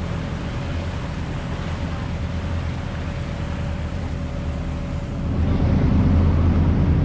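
Tour boat's engine running steadily under way, with the wake rushing and wind on the microphone. The engine hum and water noise get louder about five seconds in.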